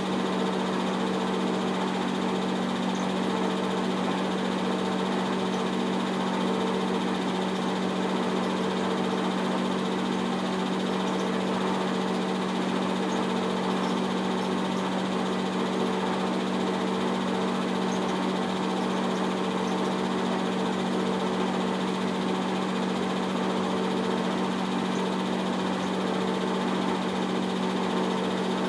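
A 70-year-old 8 mm film projector running: a steady motor and fan hum, unchanging in level.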